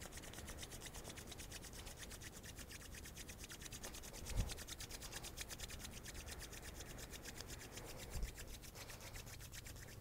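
Bare palms rubbed briskly back and forth against each other to warm them, a soft, fast, steady swishing of many strokes a second.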